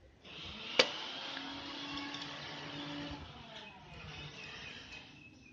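Usha sewing machine turned over by hand at its handwheel, the mechanism and drive belt running, with a single sharp click about a second in.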